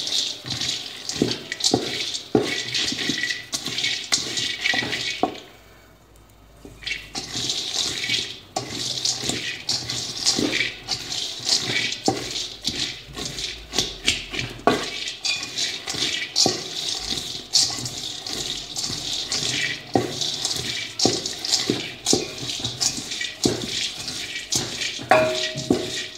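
Mixed nuts (cashews, pistachios and others) rattling and scraping in a large metal pan as a wooden spatula stirs them, dry-roasting over a gas flame before any syrup goes on. The rattle is a dense, continuous clatter that stops briefly about six seconds in, then resumes.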